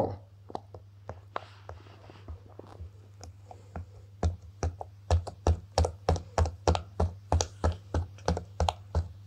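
Bubbles of a silicone push-pop fidget toy being pressed in and popping. A few scattered light pops at first, then a quick, even run of pops, about three a second, from about four seconds in.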